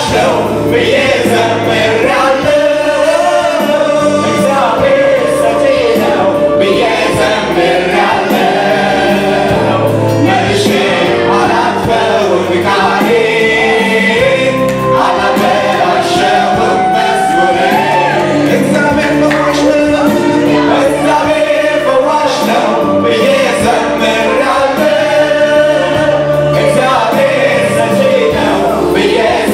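Gospel choir singing a worship song together with a lead singer, over instrumental accompaniment.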